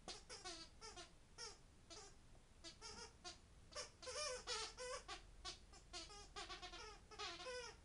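Squeaky dog toy squeaking over and over as a puppy chews it: short high squeaks in quick irregular runs, their pitch sliding up and down.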